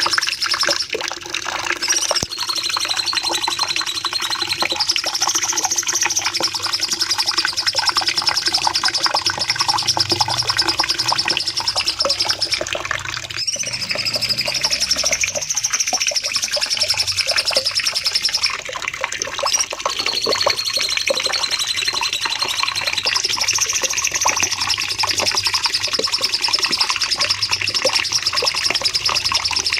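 Cucak cungkok songbird singing a long, unbroken run of rapid chattering notes with a high, steady trill, its phrases repeating over and over with a short break about halfway through.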